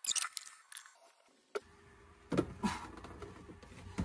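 Light clicks and knocks of a glued PVC drain pipe assembly being handled and moved, with a sharp click about a second and a half in.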